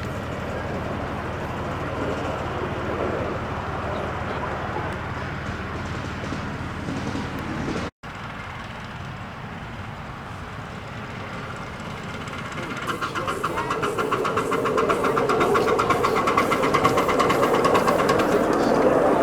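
Miniature steam engine running with steady mechanical noise. After a break, a rapid, even beat of exhaust builds up and grows louder over the last several seconds.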